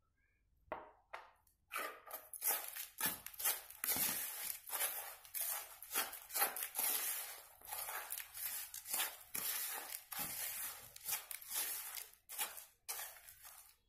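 Metal spoon stirring dry crushed biscuit crumbs in a plastic bowl: the spoon scrapes against the bowl and the crumbs rustle, in quick repeated strokes that start about a second in.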